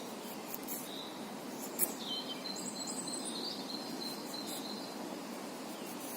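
Mora 2000 knife blade shaving curls off a wooden stick: a few short scraping strokes in the first two seconds, the sharpest about two seconds in. Birdsong chirps through the middle over a steady background hiss.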